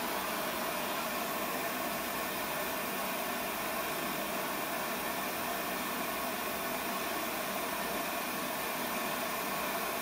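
Propane lampworking burner (a Lopet) running a concentrated flame, hissing steadily.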